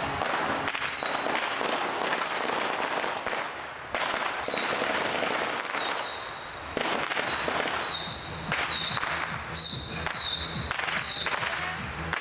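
Dense barrage of exploding firecrackers and fireworks: rapid overlapping bangs and crackling, with short high-pitched whistles recurring throughout.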